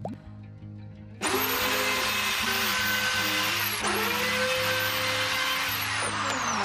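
Handheld electric plunge router starting up about a second in and running at full speed with a high whine as it cuts into a plywood panel. Its speed drops briefly and picks up again near the middle, and near the end the whine falls steadily as the motor is switched off and spins down.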